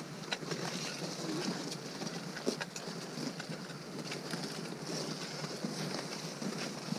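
Climbers' boots crunching on packed snow and trekking poles clicking against snow and rock, making irregular sharp clicks over a steady hiss.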